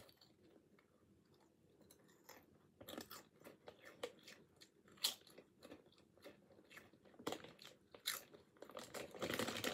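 Thin potato chips being bitten and chewed: short crisp crunches spaced a second or more apart. Near the end a plastic chip bag starts to crinkle.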